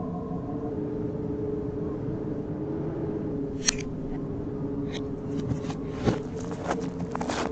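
Reversed cartoon sound effects: a steady low hum, with scattered sharp clicks and short rustles from about halfway through, like junk and debris shifting.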